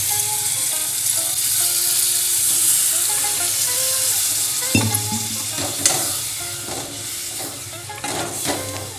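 Onion masala in a metal kadai sizzling and hissing as freshly added water boils off, the hiss slowly fading; from about halfway a steel ladle stirs and clinks against the pan.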